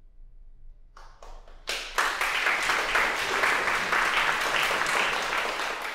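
Audience applauding at the end of a performance: a few scattered claps about a second in, swelling within a second into full applause.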